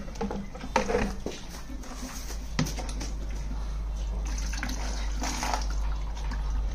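Water splashing and sloshing as a small child scoops it from a plastic bucket with a mug and tips it into a tub, with a sharp click about two and a half seconds in.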